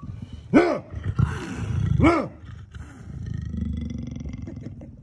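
Caged leopard snarling twice, about a second and a half apart, with hissing between the snarls, then low growling.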